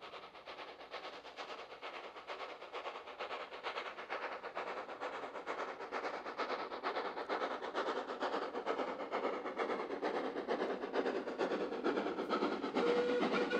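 Steam tank locomotive approaching with a train, its rapid, even exhaust beats growing steadily louder as it nears. A short steady tone comes near the end.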